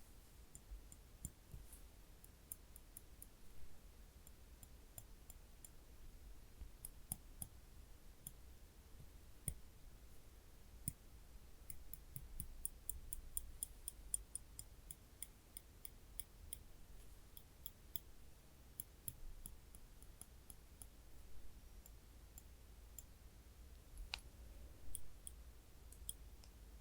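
Tweezers pressed and released, their tips clicking together in many small, sharp, high clicks. The clicks come in irregular runs, with a quicker run about halfway through.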